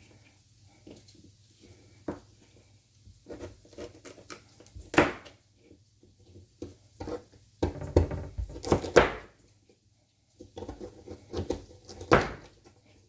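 Kitchen prep sounds: irregular knocks and clatter of a knife and utensils on a cutting board and cookware, with louder bursts of clattering about five, eight to nine, and twelve seconds in.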